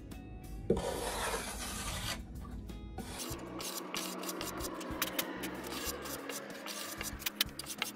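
Balsa wood being sanded or rasped by hand: one long scraping stroke about a second in, then a run of short, quick strokes.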